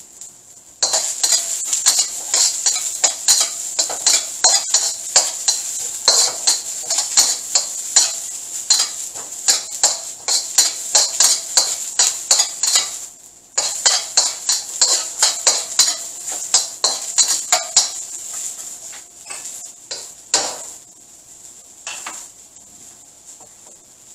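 A metal wok spatula scrapes and taps rapidly against a steel wok, stir-frying minced garlic and diced onion in oil until they brown. The stirring breaks off briefly about halfway, resumes, then thins to a few separate strikes near the end.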